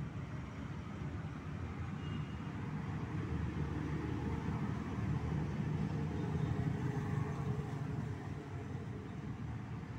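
Low rumble of road traffic going by, growing louder through the middle and easing off again toward the end.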